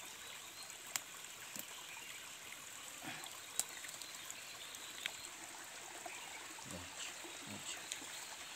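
Small stream trickling steadily over rocks, with a few sharp clicks over it.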